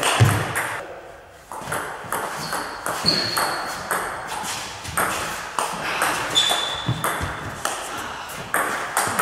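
Table tennis rally: the plastic ball clicks sharply and irregularly off the rubber-faced bats and the table, several strikes a second, with a couple of brief high squeaks.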